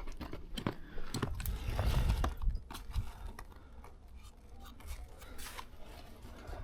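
Footsteps crunching through frozen grass and brush: irregular crackles and snaps, with a low rumble under them during the first couple of seconds.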